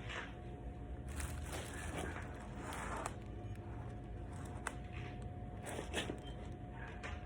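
Crinkling, rustling handling noises with a few sharp clicks and knocks, made while working under the bike during an oil drain.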